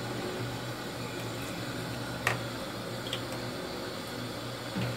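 A pot of lotus-stem curry simmering: a steady low hiss over a constant hum, with one sharp click about two seconds in.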